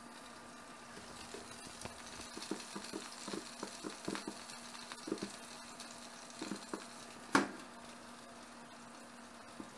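Tilefish sizzling on a toaster oven tray, with a faint crackle and scattered light clicks and knocks. About seven seconds in, one louder clunk as the toaster oven door is shut.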